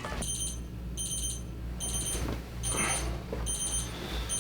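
Electronic alarm going off: short clusters of rapid high-pitched beeps, repeating evenly a little faster than once a second.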